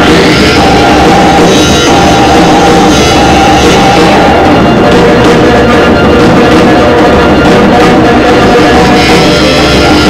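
Loud, dense live experimental noise music: a continuous wall of electronic noise and held tones from a patch-cabled synthesizer rig, with drums played underneath. A high, ringing layer enters at the start, drops out about halfway through, and returns near the end.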